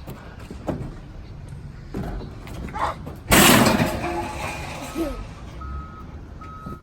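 A truck, with a sudden loud hiss about halfway through, then a reversing alarm beeping near the end.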